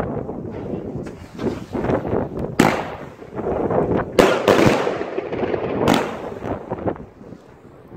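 100-shot fan-pattern firework cake (consumer battery) firing shot after shot in quick succession: a dense run of launch pops and bangs, with sharper loud bangs about 2.5, 4 and 6 seconds in.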